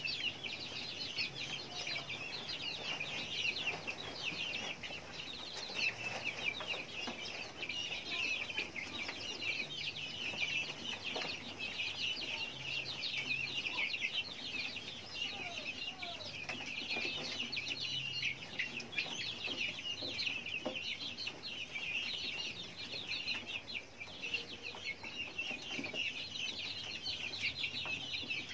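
A flock of young guinea fowl keets chirping nonstop, many short high-pitched peeps overlapping into a steady chatter.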